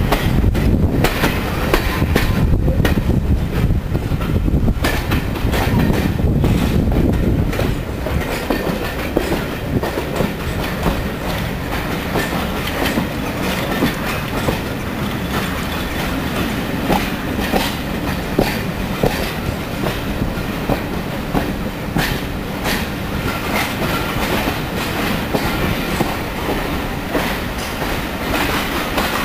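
Passenger coaches of a steam-hauled train running along the track, heard from a carriage window: a steady rumble with wheels clicking over rail joints, louder for the first several seconds and then a little quieter.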